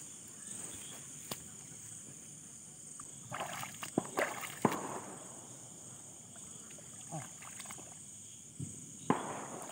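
Shallow water sloshing and splashing as someone wades and grabs at a fish. A cluster of splashes comes about a third of the way in and a few smaller ones near the end, over a steady high chirring of insects.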